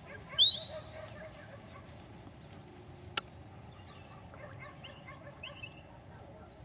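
A short, loud, sharply rising whistle about half a second in, then a single sharp click near the middle and a few faint chirps later on.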